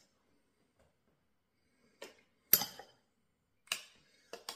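A handful of short, sharp clicks and taps from a metal spoon on a stainless steel chutney pot and a crisp poppadom as chutney is spooned on, starting about two seconds in, the loudest about half a second later.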